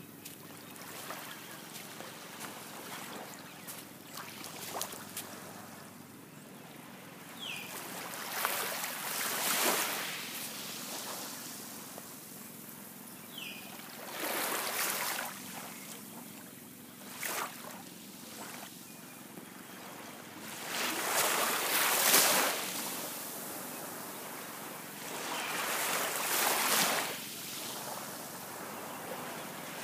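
Small waves washing onto a sandy beach, each wash swelling and fading away every few seconds over a low steady hiss.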